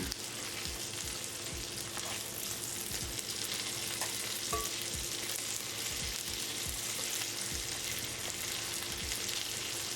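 Food sizzling in a frying pan, a steady hiss with a few soft low knocks scattered through it.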